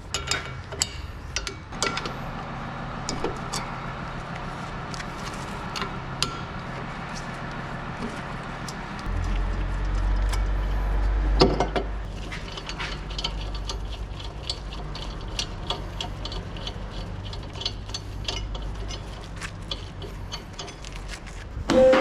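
Hand tools clicking and clinking on metal during front brake pad and disc rotor removal, with a low hum and a single loud knock about halfway through, then a run of quick, even clicks.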